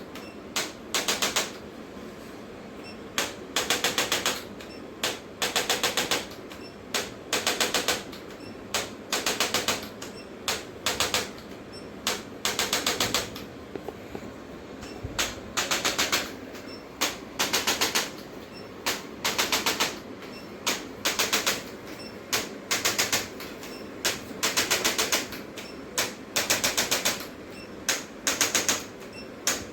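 Short bursts of rapid mechanical clicking or tapping, each about half a second long, repeating every second or two.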